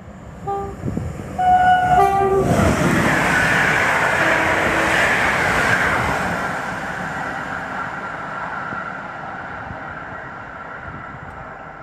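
Passenger train with coaches passing a station platform at speed. Its horn sounds in short blasts in the first two seconds, a two-tone call ending on the lower note, and then the rush and rattle of the passing coaches comes in suddenly, stays loud for a few seconds and fades slowly as the train draws away.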